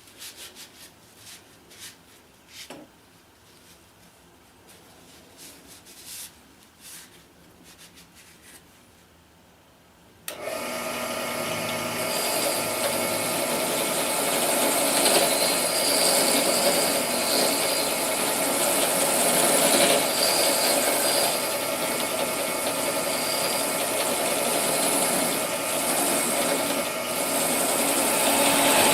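A few light clicks and scrapes of handling, then about ten seconds in a power tool starts suddenly and runs steadily with an abrasive scraping on metal, working the rust off an old drill bit.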